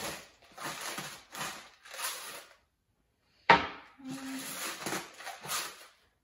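Hand-twisted salt grinder crushing salt crystals in a run of short gritty strokes, a few a second, pausing briefly before a second run. A single sharp knock about halfway through is the loudest sound.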